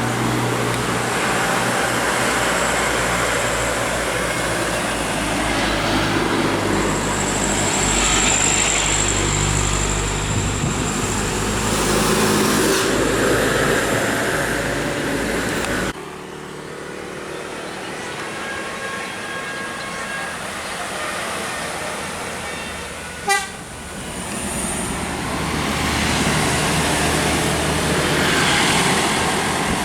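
Heavy road vehicles such as buses and trucks passing close by, with engine and tyre noise and horn toots mixed in. About halfway through, the sound drops abruptly to quieter traffic with a short sharp blip, and another vehicle comes up loud near the end.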